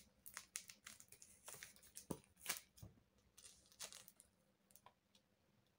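Faint snipping and crinkling of brown packing tape as scissors cut a strip from the roll and the strip is handled: a scatter of small sharp clicks and crackles that thins out near the end.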